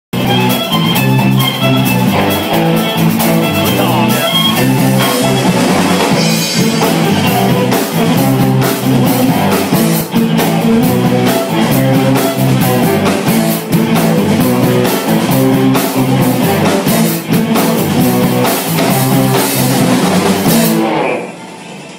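Live rock band playing electric guitar, bass guitar and drum kit, with a steady drum beat; the music stops about a second before the end.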